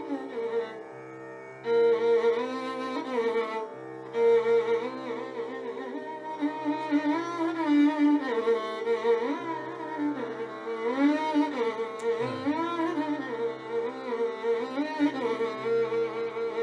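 Instrumental background music: a gliding, ornamented melody line over a steady drone.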